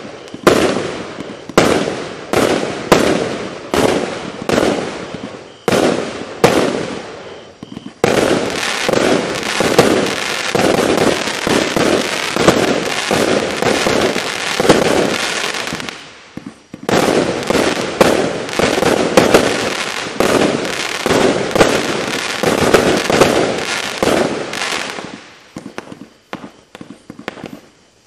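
JoHo Pyro 'Thunderstorm' firework going off: separate loud bangs about two a second for the first several seconds, then a dense, continuous rattle of rapid reports that pauses briefly about halfway and resumes before thinning out into scattered pops near the end.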